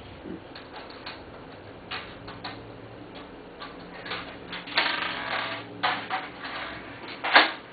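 Scattered clicks and light metal clatter from handling a desktop computer case and its parts, with a longer scraping rattle about five seconds in and a sharp clack near the end.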